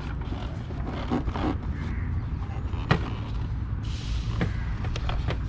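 Plastic air intake box knocking and clicking as it is tugged at in the engine bay, still held by a fixing; one sharp click about three seconds in and a brief scraping hiss soon after, over a steady low background rumble.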